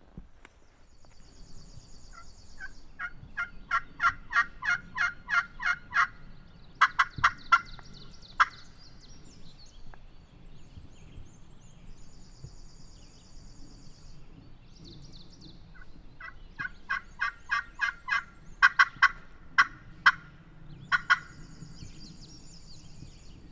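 Turkey call run by a hunter, giving two long series of hen-turkey yelps, about three notes a second, each series ending in a few sharper, louder notes. Faint high songbird trills sound between the series.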